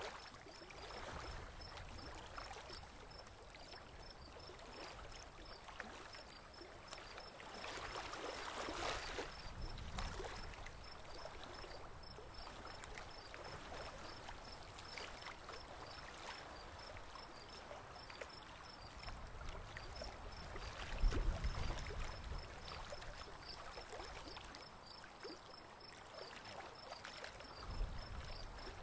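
Water lapping and trickling along the hull of a slowly moving boat on a calm river. A faint high chirping repeats a few times a second almost the whole time, and low rumbles come about two-thirds of the way through and again near the end.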